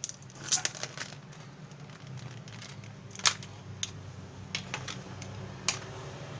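Scattered small clicks and taps from handling a DDR4 laptop RAM module and the open laptop, the loudest about three seconds in, over a steady low hum.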